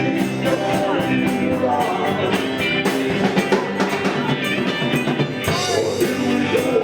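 Live rock band playing: a drum kit keeping a steady beat under guitar, at full volume.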